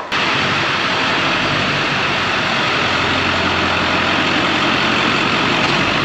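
A pickup truck engine idling steadily: a low, even hum under a steady hiss.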